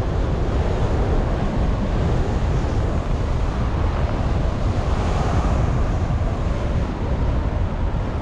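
Airflow rushing over the microphone of a paraglider pilot in flight: a steady, unbroken rumble of wind noise, heaviest in the low end.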